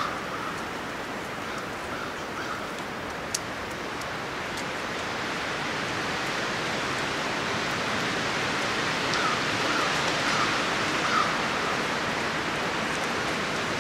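Wind rushing steadily through the trees, slowly building in strength, with a couple of faint ticks.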